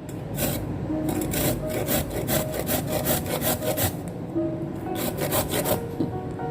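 Quick repeated scraping and cutting strokes of food being prepared, about three or four a second, like a knife working on a wooden cutting board. Soft background music plays underneath.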